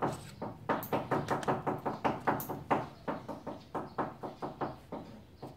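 A quick, fairly even series of light knocks or taps, about four to five a second, growing fainter toward the end.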